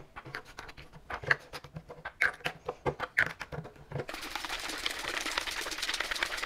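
Two small plastic bottles of hydroponic A and B nutrient tablets, handled with a few light clicks and taps, then shaken hard from about four seconds in: a fast, even rattling shake to dissolve the tablets.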